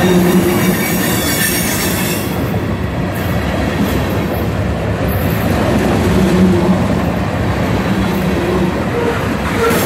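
Union Pacific freight train's cars rolling past close by: a loud, steady rumble and rattle of steel wheels on rail, with a brighter hiss in the first couple of seconds.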